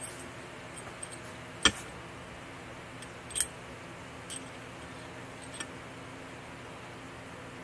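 Hand tools clinking as a hammer, a center punch and a socket are picked up and set against a metal housing: a few sharp, separate clicks, the loudest about a second and a half in and fainter ones around three and a half, four and a half and five and a half seconds.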